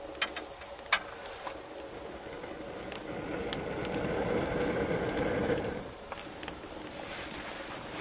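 Dry grass tinder catching fire from a smouldering ember in a metal drum. Sharp crackles and pops are heard, and a rushing sound swells for about three seconds, then stops suddenly about six seconds in as the tinder flares into flame.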